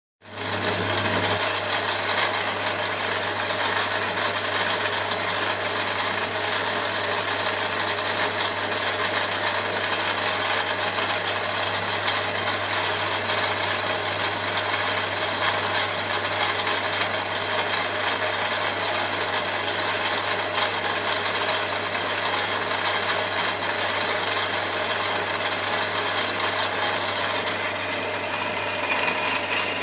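Milling machine spindle running at speed with a small drill in the chuck: a steady motor hum with rattle over it. Near the end the sound brightens as the drill starts into the aluminium block.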